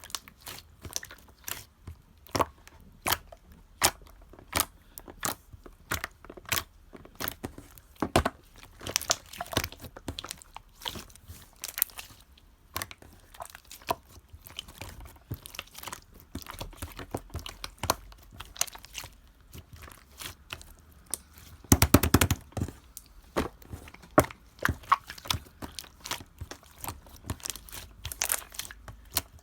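Clear slime being squeezed and worked by hand, making many irregular sticky clicks and pops. A dense, louder run of pops comes about three-quarters of the way through.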